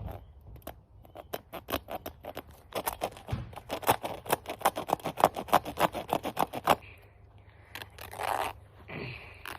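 Hands cutting into a sneaker's material: a fast run of sharp snipping clicks, about seven or eight a second, for several seconds. A short rasping scrape follows near the end.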